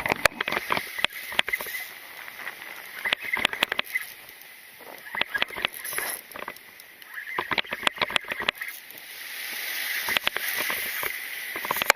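Fishing reel being cranked in short bursts of rapid clicking as a fish is wound in, over a steady hiss that swells in the last few seconds.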